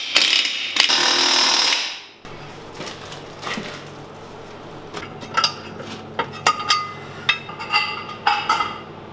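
Impact wrench rattling a wheel nut onto the hub for about two seconds, then stopping. After that come scattered metallic clanks and knocks, some ringing briefly, as the heavy tractor wheel is handled.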